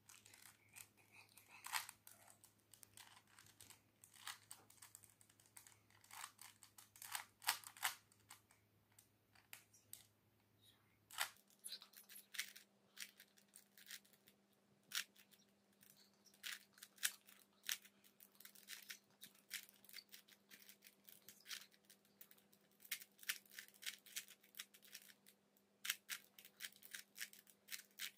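Plastic 3x3 Rubik's Cube being turned quickly by hand: a run of irregular light clicks as the layers snap round during a timed solve. About eleven seconds in, the recording is sped up to double speed, so the clicks come faster and higher.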